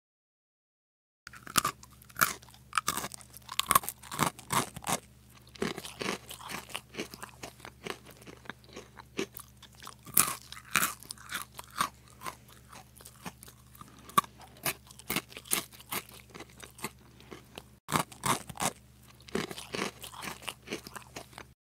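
Close-up crunching and chewing of crispy fried samosa, with many sharp crackly bites one after another. It starts about a second in, over a faint steady low hum.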